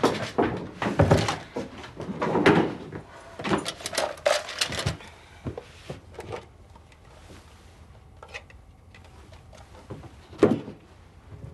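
Knocks and clunks of household objects being handled, such as drawers, doors or cupboards, close together in the first five seconds and then only now and then, with one sharp knock about ten and a half seconds in.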